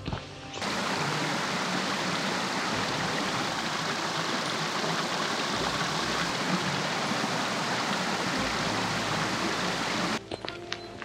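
A small rocky forest stream rushing steadily over stones and little cascades. It begins suddenly about half a second in and cuts off about a second before the end, where background music with footstep taps takes over.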